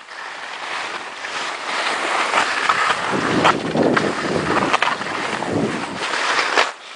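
Skis sliding and scraping over snow at speed, with wind buffeting the microphone. The hiss builds over the first couple of seconds, several sharp scrapes come through the middle, and the noise drops off suddenly near the end.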